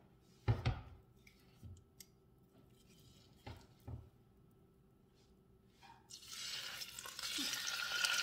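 A few short knocks, the loudest about half a second in, then about six seconds in a piece of chuck roast goes into hot olive oil in an enamelled cast-iron pot and starts to sizzle, the hiss growing louder. The sizzle shows the oil is hot enough to sear the meat.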